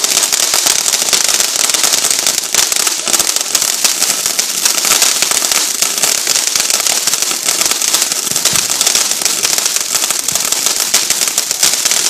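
Fireworks crackling: a dense, unbroken stream of small sharp pops, many each second.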